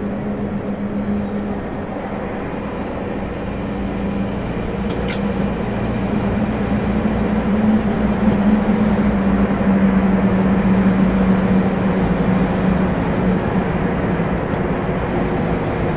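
Lorry engine droning steadily under the cab, heard from inside with road noise, growing louder about a third of the way in. Two short clicks come about five seconds in.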